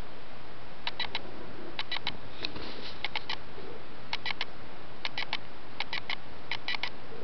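A female cat in heat making faint, wavering low calls, while a high, rapid triple chirp of unknown source repeats about once a second.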